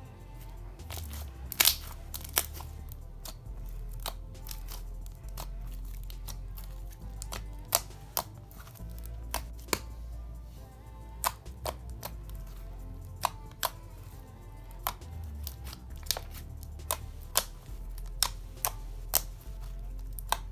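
Thick clear glue-and-borax slime being squeezed and stretched by hand, giving sharp, irregular clicks and pops, about one every half second to a second, over background music.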